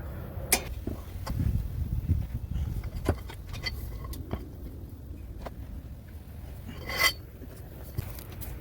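Scattered metal clicks and taps of hand tools and sockets being handled, with a louder short rattling scrape about seven seconds in, over a low steady rumble.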